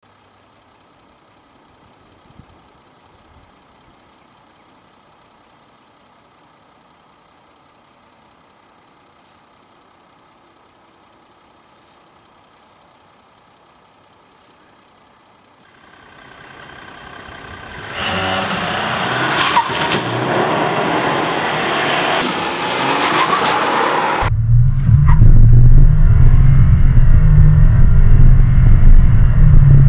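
Volkswagen Amarok 3.0 TDI V6 diesel pickup accelerating hard from a standstill. Faint outdoor quiet gives way, about halfway through, to the engine's sound rising and growing loud. Near the end it becomes a loud, low drone heard from inside the cab as the truck keeps accelerating.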